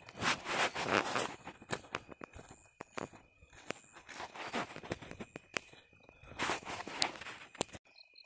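Footsteps and rustling handling noise as a phone camera is carried. Irregular crunches and sharp clicks come every second or so.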